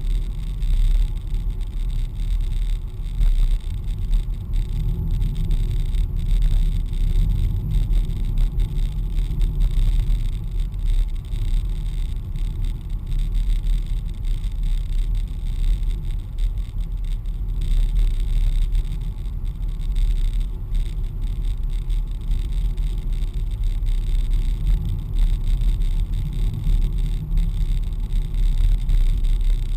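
Car driving steadily, heard from inside the cabin: a continuous low rumble of engine and road noise.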